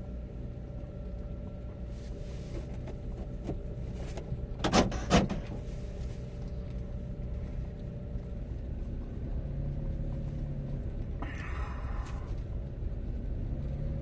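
A car running at low speed: a steady low engine and road rumble. Two sharp knocks come close together about five seconds in, and a brief hiss about eleven seconds in.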